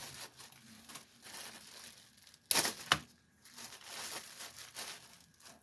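Plastic accessory bag crinkling and rustling as it is handled and opened, with a sharper, louder crinkle about two and a half seconds in.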